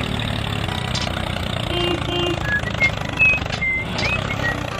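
Tractor engine running steadily, a low rumble, with a few short high chirps above it.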